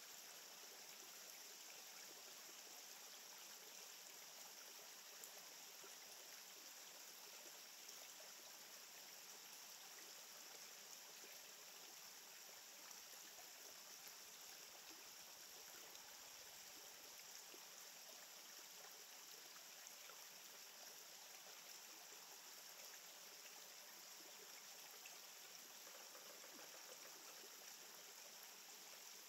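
Faint, steady rushing noise, like running water from a distant stream, with no distinct events.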